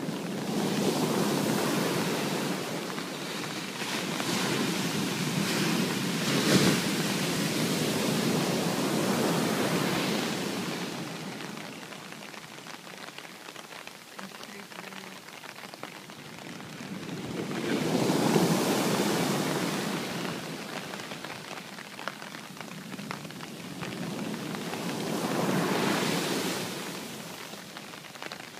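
Sea waves breaking and washing in, with steady rain hissing underneath. The surf swells up and fades three times: a long surge over the first ten seconds or so, another past the middle and a third near the end.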